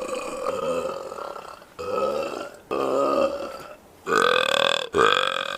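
A person belching, a string of long, drawn-out burps one after another. One carries on from before and ends near the two-second mark, then four more follow, starting about two, three, four and five seconds in, with the last two the loudest.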